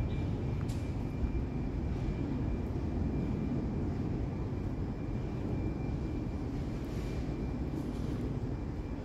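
Steady low rumble of outdoor background noise, with a faint steady high-pitched tone over it.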